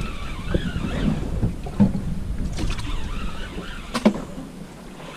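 Wind and sea noise on a small boat at sea, a low rumbling haze that fades toward the end, with one sharp knock about four seconds in.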